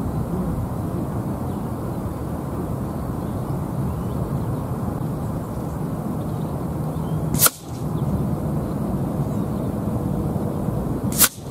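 Two sharp shots from a sub-12 ft-lb air rifle, about four seconds apart, one near the middle and one near the end. Between them a steady low rumble of wind on the microphone.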